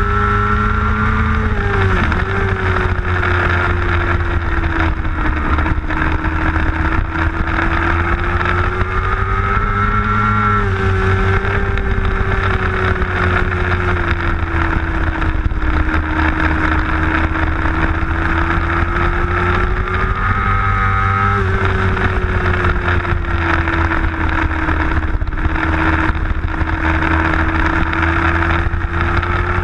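Middleweight superbike racing motorcycle engine at high revs. Its note sinks and climbs again several times as the rider brakes into corners and accelerates out, with abrupt pitch steps at the gear changes.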